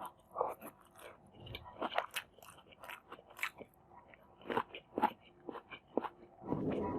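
Close-miked chewing and biting, with irregular crisp crunches and wet mouth clicks.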